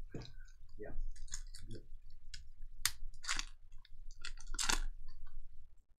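Crinkling and rustling of trading-card pack wrappers and cards being handled, in short irregular crackles.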